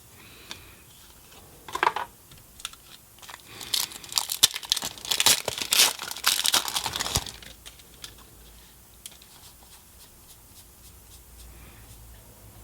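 Foil wrapper of a Magic: The Gathering booster pack being torn open and crinkled. A short rustle comes about 2 s in, then dense crackling for about three and a half seconds, then only faint handling.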